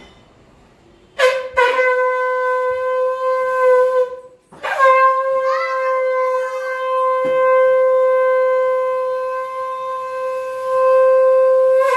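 Conch shell (shankh) blown in two steady blasts. The first lasts about three seconds. After a brief break, the second runs about seven seconds and is strongest near its end. It is sounded to close the puja.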